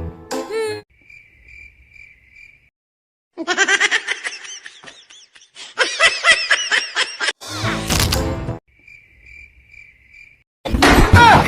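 Cartoon sound effects: two bursts of high, bouncy giggle-like sounds, then a short noisy whoosh, with faint repeated chirping beeps in the quiet stretches before and after.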